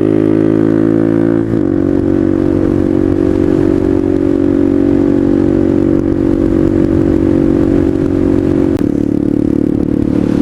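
Suzuki DR200's single-cylinder four-stroke engine running through a DG O-Series aftermarket exhaust while the bike is ridden. It gives a steady, loud exhaust note that steps in pitch about one and a half seconds in and again near the end.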